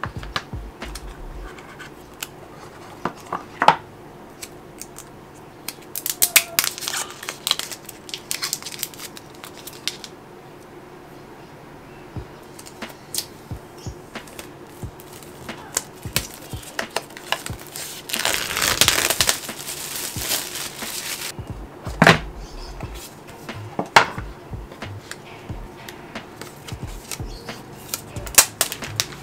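Packaging of an Apple Pencil and an iPad Magic Keyboard being handled and opened: paper and plastic rustle and tear in two longer stretches, one a few seconds in and one past the middle. Between them come light taps and a few sharp knocks of box and lid.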